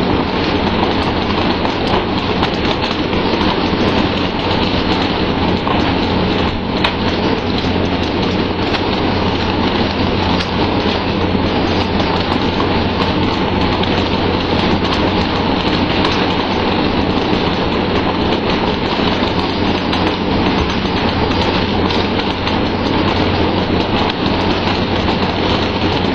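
Steady, loud rushing noise with a low hum underneath, unchanging throughout.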